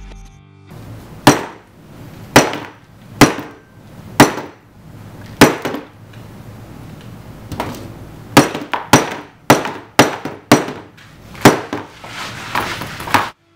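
Steel claw hammer striking a smartphone fitted with a tempered anti-shock screen protector, about a dozen sharp blows. The first five come roughly a second apart, then a quicker run of blows follows about eight seconds in.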